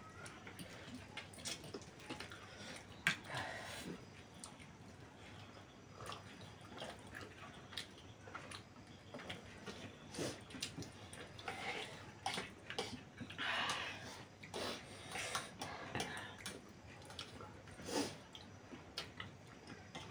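Close-up eating sounds of several people having instant noodles and fried chicken: chewing, slurping and forks clicking against plates, in scattered short bursts. The sharpest clicks come about three seconds in and near the end.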